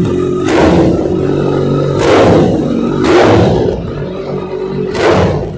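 Kawasaki ZX-14R's inline-four with a Brock's full exhaust system idling and being revved in four short blips, each surging and then dropping back to idle.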